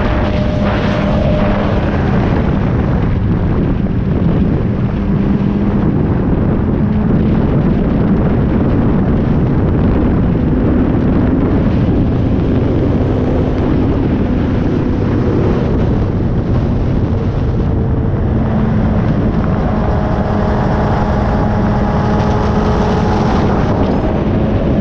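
Subaru STI being driven at steady revs: a constant engine drone whose pitch drifts slowly, over road and wind noise.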